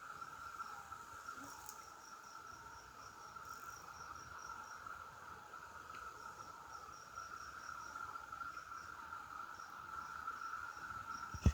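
Cicadas droning in a steady, unbroken chorus, with a fainter, higher pulsing insect call over it that comes and goes. A single sharp click near the end.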